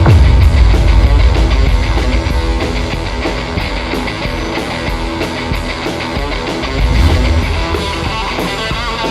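Rock background music with electric guitar and a steady beat, with a heavy bass swell about a second in and again near the end.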